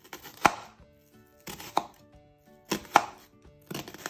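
Kitchen knife slicing down through a shallot and knocking on a plastic cutting board: three separate strokes, evenly spaced about a second and a quarter apart.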